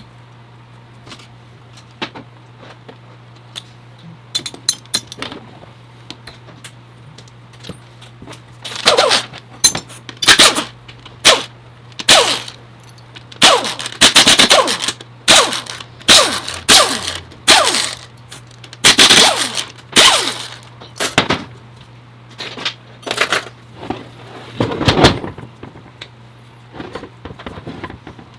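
Tool work on a Jatco four-speed automatic transmission being taken apart: repeated sharp metallic knocks and short rattling bursts, sparse at first and coming thick and fast from about a third of the way in, over a steady low hum.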